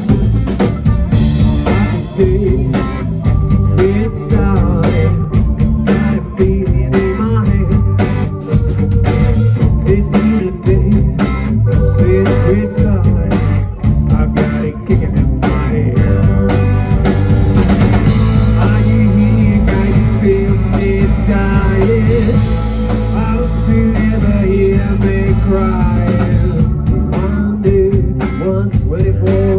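Rock band playing live: distorted electric guitars, bass and drums with a steady beat, and a lead vocal over them.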